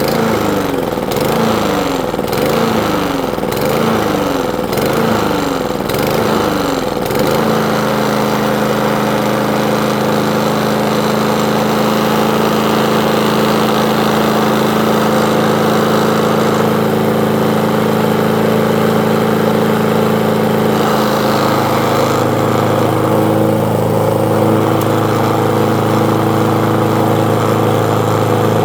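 Small lawn mower engine running, its speed rising and falling about once a second, then settling into a steady run about seven seconds in.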